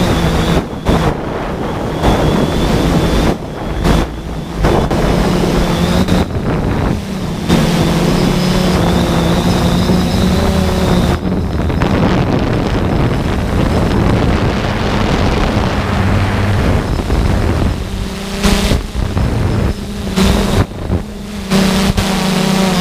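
3DR Solo quadcopter's motors and propellers humming steadily, heard from on board, with wind rushing over the microphone. The sound dips briefly several times.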